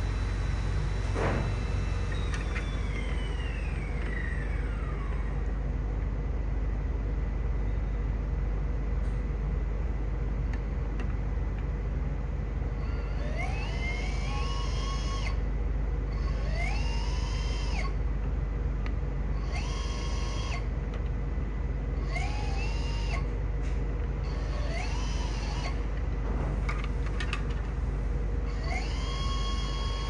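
Electric motors of two small brushless underwater thrusters whining as they run out of water on remote control. Early on a whine winds down and falls in pitch. Later the motors repeatedly spin up with a rising whine, hold speed briefly and cut off, about seven short bursts over a steady low hum.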